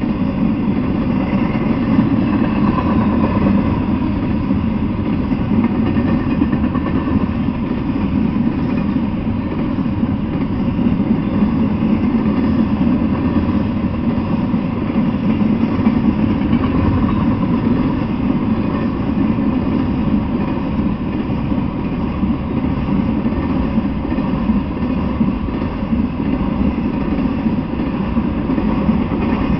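Intermodal freight train rolling past, a steady rumble of its cars' wheels on the rails with no change in level.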